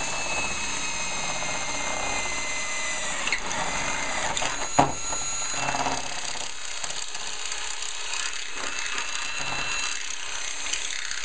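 Cordless drill running steadily with a 3/8-inch bit, boring a hole down into the bottom track of a sliding patio door. There is a high motor whine that dips briefly about three seconds in, and a single sharp click just before five seconds.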